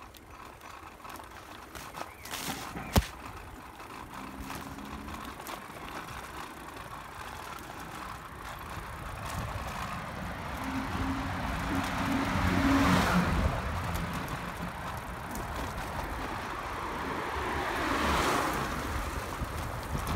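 Cars passing on the road, their noise swelling and fading twice, once around the middle and again near the end. A single sharp click about three seconds in.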